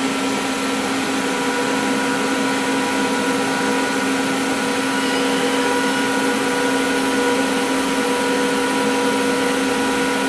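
Pulsed DC TIG welding arc from an R-Tech TIG 260 inverter welder on thin stainless steel tube, set to 22 amps and pulsing 500 times a second: a steady, even buzzing hiss with several steady tones in it. The high pulse rate gives a tight arc with low heat input.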